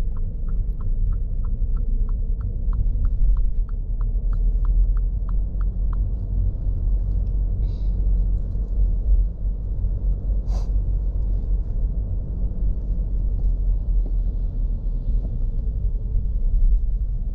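Steady low rumble of a car moving, heard from inside the cabin, with a turn-signal indicator ticking about three times a second for the first six seconds. A single sharp click comes about ten seconds in.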